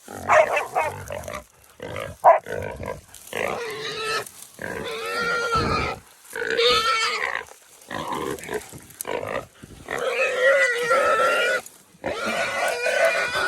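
Feral hog sow squealing in a series of long, loud, pitched cries with short breaks between them, while held by catch dogs.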